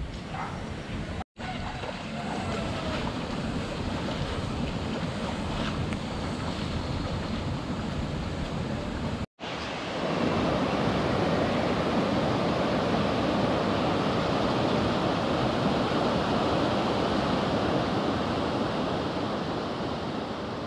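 Muddy floodwater in a swollen river, rushing steadily. It is louder from about nine seconds in and fades near the end. Before that there is a quieter steady hiss.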